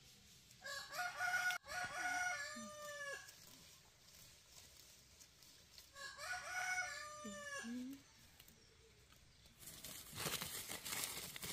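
Rooster crowing twice, about five seconds apart, each crow ending on a falling note. Near the end, a stretch of loud, even noise.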